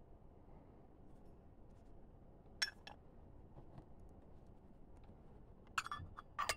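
Small metallic clicks and clinks of brass lighter parts being handled: a sharp click about two and a half seconds in, then a quick cluster of clinks near the end as the lighter insert is lowered into its brass case.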